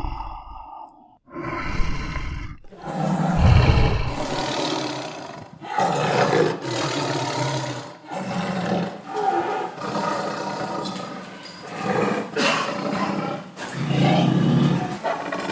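Tiger roaring repeatedly, about seven long calls in a row with short breaks between them.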